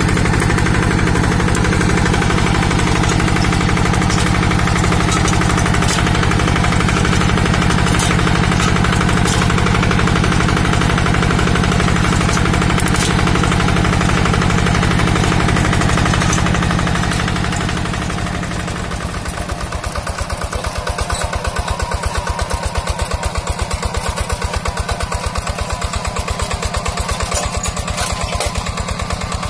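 Two-wheel hand tractor's single-cylinder diesel engine running steadily with a rapid even beat while pulling a plough through hard, dry ground. About two-thirds of the way through it gets a little quieter and the separate firing beats stand out more.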